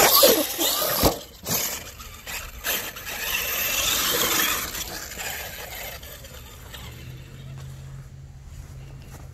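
Large-scale RC monster truck being driven hard: its motor whines, rising and falling in pitch, with several sharp knocks from the chassis and tyres hitting the ground. It quiets after about six seconds, leaving a faint steady hum.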